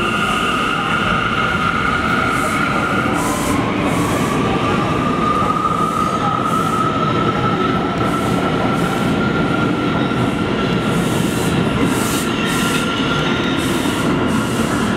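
Bombardier R179 subway train pulling out of the station with a steady loud rumble. Its high motor whine starts rising in pitch about three seconds in as it gathers speed, and the wheels click over the rail joints again and again.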